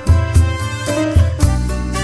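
Instrumental background music, a melody over a recurring bass beat.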